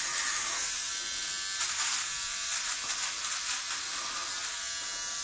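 Handheld electric beard trimmer buzzing steadily as it runs over the beard on the cheek and jaw.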